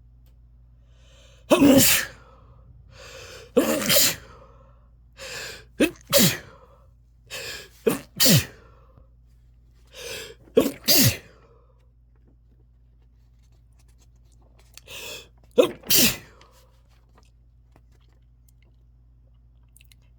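A person sneezing over and over: about six loud, sudden sneezes, most coming as quick doubles, each set off by a shorter, quieter breath in. The run stops about three quarters of the way through.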